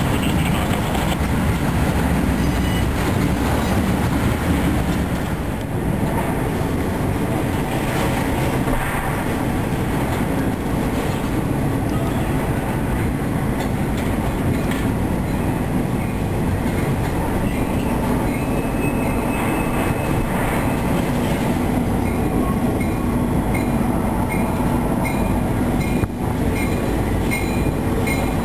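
A train passing close by: a loud, steady rumble of wheels on the rails that holds for the whole stretch, with clickety-clack and some wheel squeal.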